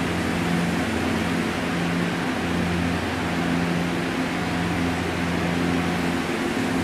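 Steady fan noise with a constant low electrical hum, typical of machinery cooling fans or air conditioning running in a workshop.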